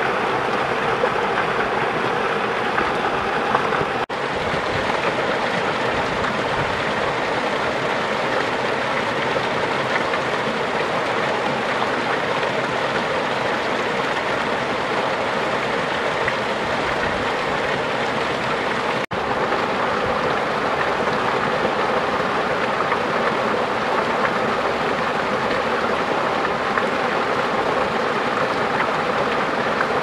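Small waterfall stream splashing and rushing over rocks and clay, a steady water noise. It drops out for a moment twice, about four seconds in and again near the middle.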